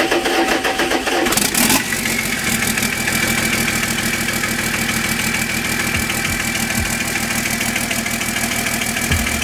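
Sisu 84CTA six-cylinder turbodiesel starting: it is cranked and catches about a second and a half in, then runs steadily at idle. Cylinder two is not firing; the owners suspect a mechanical fault in its piston, a hole or broken-off pieces, and the engine blows by.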